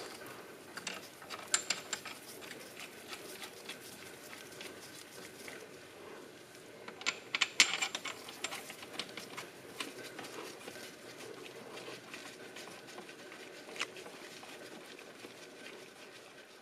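Scattered light metallic clicks and small knocks of connecting-rod cap bolts being handled and threaded in by hand, with a denser run of clicks about halfway through.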